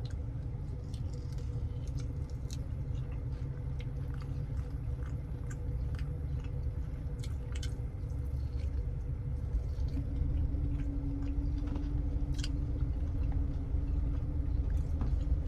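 A man chewing and biting into a chicken wing dipped in sauce, with scattered small wet mouth clicks, over a steady low background rumble and hum.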